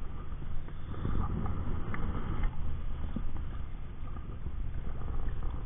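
Steady rush of river water with a low wind rumble on the microphone, and a few faint taps.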